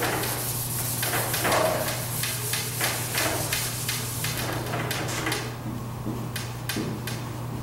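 Whiteboard eraser rubbing across a whiteboard in repeated back-and-forth strokes, followed near the end by a dry-erase marker writing on the board in short, sharp strokes.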